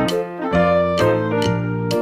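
Background music: a bouncy children's tune on piano or keyboard with a steady beat.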